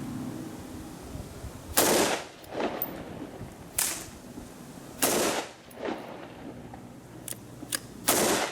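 AR-15 rifle fired four single shots at an uneven pace, each crack followed a moment later by a weaker echo.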